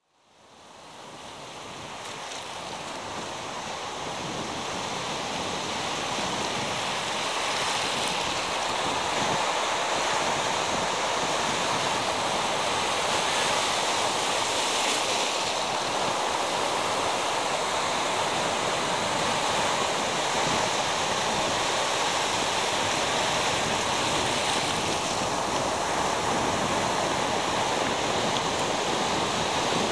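Pacific Ocean surf washing up a sandy beach at the water's edge: a steady rush of breaking waves and foam. It fades in from silence over the first few seconds, then holds steady with gentle swells as waves come in.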